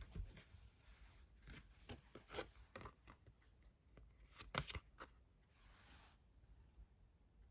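Tarot cards being handled on a table: soft scattered taps and flicks of cards, a louder cluster of clicks about four and a half seconds in, and a brief sliding rustle a little later.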